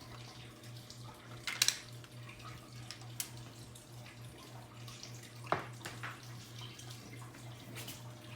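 A few light, sharp clicks and taps of small objects being handled, over a steady low hum and faint hiss.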